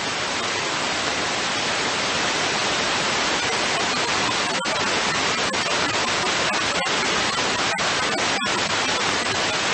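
Steady hiss of radio static from an airband receiver between air traffic control transmissions, broken by a few momentary dropouts.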